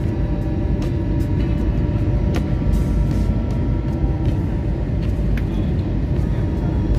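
Airliner cabin noise on descent: the steady low rumble of the jet engines and airflow, with a few faint clicks.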